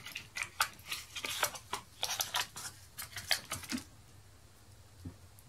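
Quick light clicks and rattles of a metal-bodied jackknife lock pick set being handled and taken out of its small box, with some rustling of packaging. The clicking stops about four seconds in, with one faint tap near the end.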